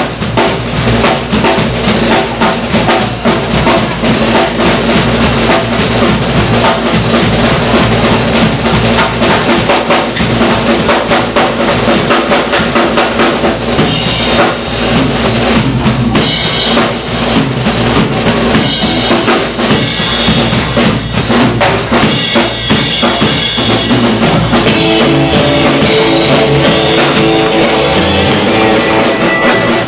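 Live drum kit solo: fast, dense strokes on snare, toms and bass drum with cymbals. About three-quarters of the way through, pitched instruments come in under the drums as the band rejoins.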